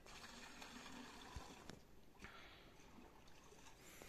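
Faint splashing of water being poured from a plastic container into a bucket, with a short break about two seconds in.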